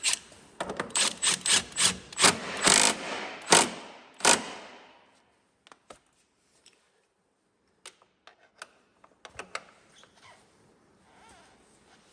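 Hand tools working on a snowmobile chain case: a quick, irregular run of sharp knocks, about two or three a second, for the first four seconds or so, then a few scattered light clicks.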